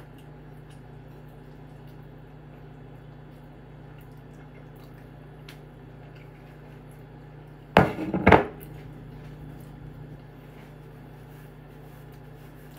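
Quiet eating from a plate, with a few faint light clicks over a steady low hum, and a short, louder double sound about eight seconds in.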